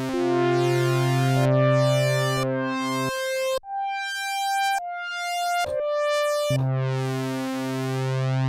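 Korg DW-8000 hybrid synthesizer, digital wavetable oscillators through an analog filter, played as sustained chords over a low bass note. In the middle it drops to a few single higher notes, then returns to the chords.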